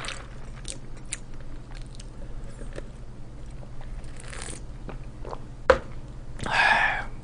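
A person eating breaded, fried fast food: small chewing clicks, then a sharp crack about two thirds of the way in, followed by a louder crunchy bite near the end.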